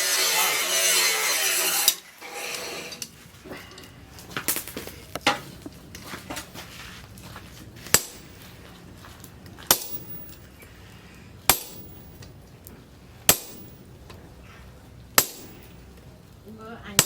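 Music for about two seconds, then lighter knocks, then five sharp hammer blows on steel, evenly spaced about two seconds apart.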